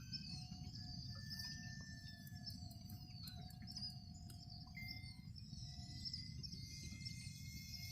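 Faint outdoor ambience: a low wind rumble on the microphone, with birds chirping.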